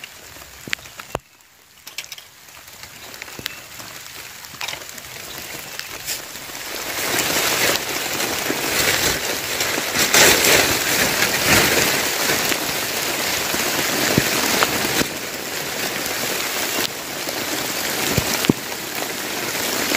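Rain falling, light at first with a few sharp clicks, then building about six to seven seconds in into a steady heavy downpour.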